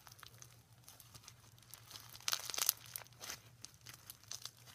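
Pink slime packed with foam beads squeezed and kneaded by hand, giving a crackling crunch of many small pops, loudest in a burst about halfway through.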